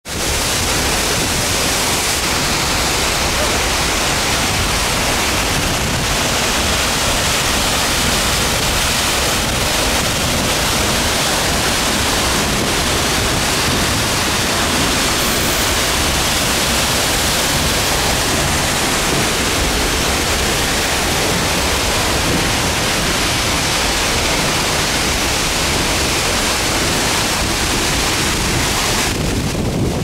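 Seljalandsfoss waterfall pouring down close by, a loud steady rush of falling water. Near the end the high hiss drops away, leaving a lower rumble.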